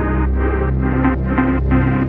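Electronic background music: a steady deep bass under synth chords that pulse about twice a second.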